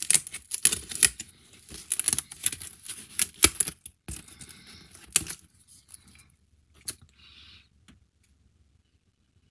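Quick clicks, snaps and scrapes of pre-cut foam-board puzzle pieces being pressed out of their sheet and handled, busy for the first four seconds, then thinning to a few scattered clicks.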